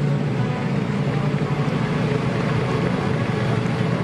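Type 90 main battle tank driving past, its 10-cylinder two-stroke diesel engine running steadily, the sound heaviest in the low range.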